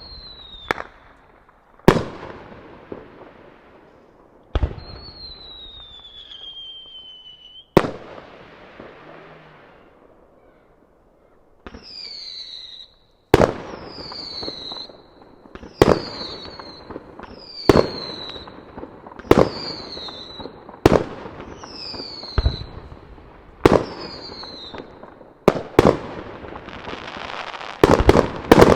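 Aerial firework shells bursting in a series of sharp bangs that echo back, with high falling whistles sounding between the bursts. Near the end, several bursts come together in a dense volley with crackling.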